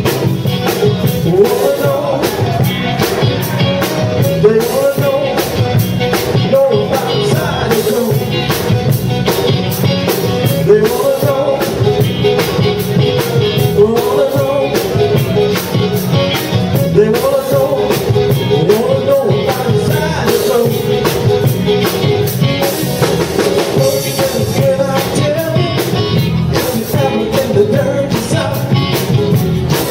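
Live band playing an upbeat blues-rock number on drum kit, electric guitar and keyboards, with a steady, even drum beat.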